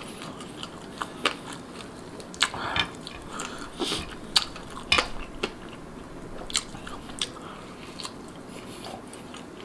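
Close-miked eating sounds: fingers picking and tearing at grilled marinated rabbit meat, and chewing, with scattered sharp wet clicks.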